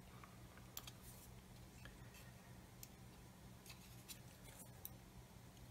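Faint, scattered clicks and scrapes of metal tweezers against small plastic model-kit parts as a tiny pipe is worked into place, over a low steady hum.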